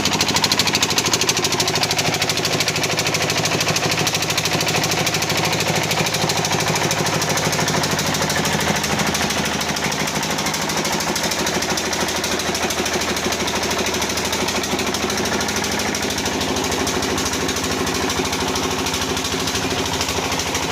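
Hyundai washing machine running with a fast, steady rattling knock over a motor hum.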